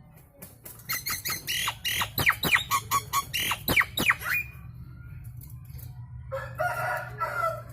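Nias hill myna calling loudly: a rapid run of sharp whistles and quickly falling notes for about three and a half seconds, then a harsher, lower call near the end.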